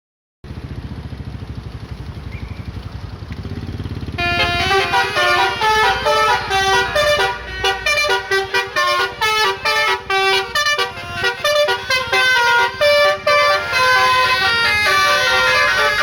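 A bus engine rumbles low, then about four seconds in a telolet multi-tone bus horn starts playing a fast tune of quickly stepping notes.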